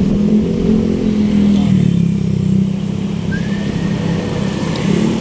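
A motor vehicle engine running close by in street traffic, with a steady low hum. Just past the middle, a thin high tone rises and then holds for about a second and a half.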